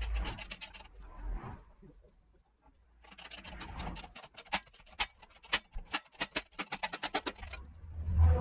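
Quick runs of sharp metallic clicks, several a second, with some scraping: hand tools working on metal parts. A low thump comes near the end.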